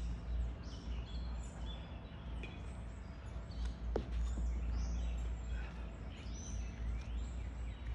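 Birds chirping and twittering throughout, over a low, fluctuating rumble of wind on the microphone. A single sharp click about four seconds in.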